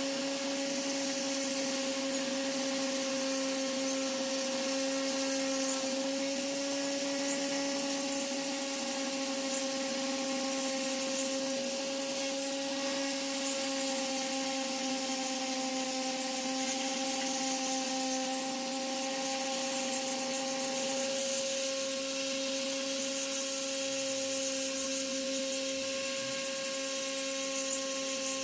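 A small power tool's motor running steadily at one speed, a constant high whine with a hiss, briefly dropping slightly in pitch about two-thirds of the way through.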